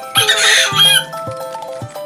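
Background music with a melody over a steady beat, and a loud, brief squeaky noise lasting under a second near the start.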